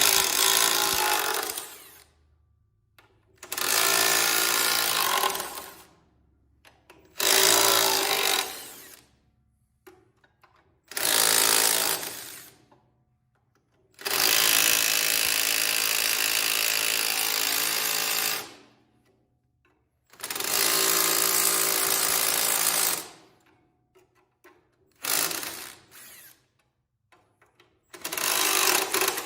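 Power impact wrench run in about eight bursts of two to four seconds each, one longer burst about halfway through, with short pauses between: the cylinder head bolts of a Cub Cadet 127 engine being broken loose.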